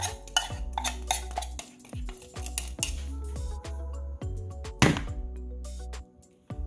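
A metal spoon clinking and scraping against an opened can and a mixing bowl as the last of the condensed milk is scraped out, with a series of sharp taps and one louder knock about five seconds in; a fork then dips into the mixture. Music plays in the background.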